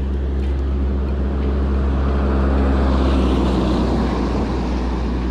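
A passing road vehicle, its tyre and engine noise swelling to a peak about three seconds in and then fading. A steady low hum runs underneath.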